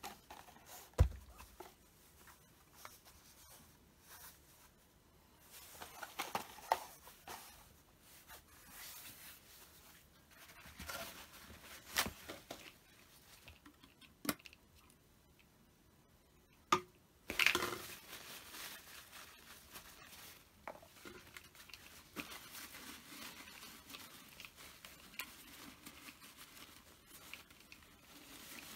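Scattered tabletop handling sounds: a single heavy thump about a second in, then sporadic clicks and taps with soft crinkling of plastic.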